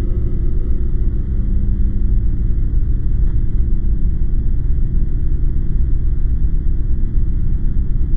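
A steady low rumble with no clear pitch, an ambient drone bed under the opening titles.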